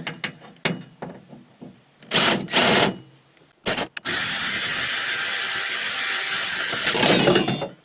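Power drill with a step bit drilling out the head of an aluminum rivet in a car door bracket: two short bursts about two seconds in, then a steady run with a motor whine for about three seconds, turning louder and rougher near the end.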